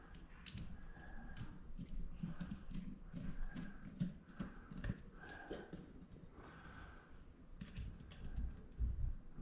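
Irregular small clicks, taps and knocks with some rubbing as fuel pump parts are handled and forced into place by hand, with a few heavier thumps near the end.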